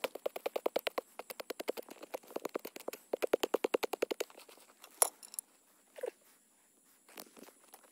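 A small hand tool scraping and chopping rapidly into dry, hard soil, about ten quick strokes a second, as a pit is dug to bury a rabbit trap. It stops about four seconds in, followed by a few scattered knocks and a sharp click.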